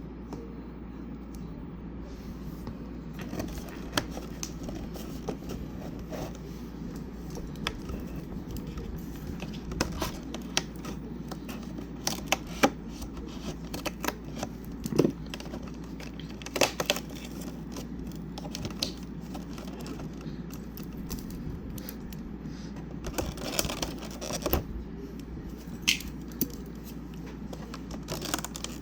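Cardboard calendar box and plastic packaging being handled and opened: scattered clicks and taps with bits of tearing and crinkling, over a steady low hum.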